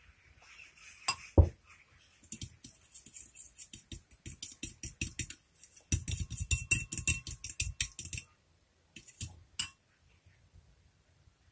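Metal fork whisking powdered sugar and lemon juice into a glaze in a glass bowl, rapidly clinking and scraping against the glass in two spells, the second louder, with a few last taps near the end; the glaze is being stirred until no lumps remain. About a second in, a single sharp knock of glass is the loudest sound.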